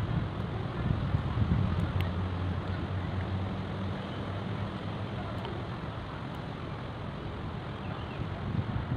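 Wind buffeting the microphone as a low, uneven rumble, gustier in the first couple of seconds. A few faint clicks of a metal fork and spoon on a plate come through it.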